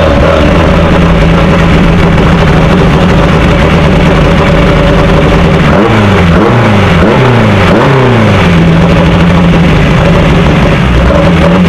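Formula Easter single-seater race car engine, heard onboard close to the microphone, running at low, steady revs. About six seconds in the revs rise three times in quick succession, then settle back to a steady low drone.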